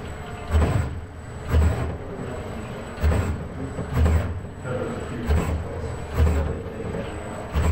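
ABB industrial robot arm moving rapidly between paint cups and paper, its joint motors and gearboxes running loud in repeated heavy low surges about once a second, with a faint steady whine partway through.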